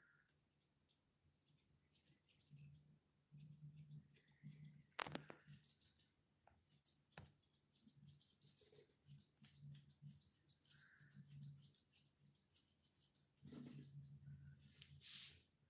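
Curved grooming scissors snipping through a toy poodle's curly coat as its face is trimmed, in quick runs of light snips with short pauses between them.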